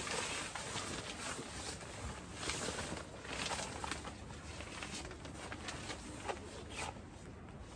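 Nylon sleeping bag and its stuff sack rustling and swishing in irregular bursts as they are pulled apart and shaken out.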